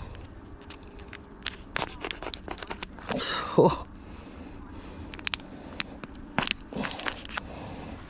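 Plastic bottle of rotting bait being stabbed with a knife: the plastic pops and crackles in sharp, irregular clicks.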